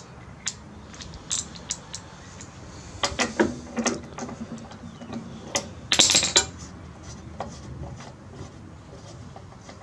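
Ratchet wrench clicking in short irregular runs with metal clinks as a socket unscrews the spark plug from a Briggs & Stratton lawnmower engine, with the loudest run of clicks about six seconds in.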